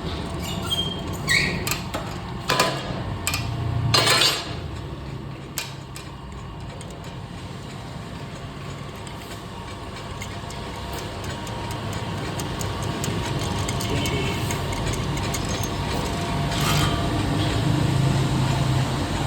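Lathe running with a steady hum while steel wire is coiled into a spring. Sharp metallic clicks and knocks come in the first few seconds, and the running sound grows louder toward the end.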